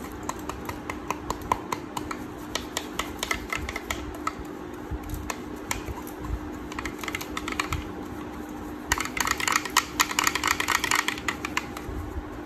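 Tint brush tapping and scraping against a plastic hair-colour bowl while mixing cream hair dye with developer: irregular clicks, with a denser flurry of quick taps near the end.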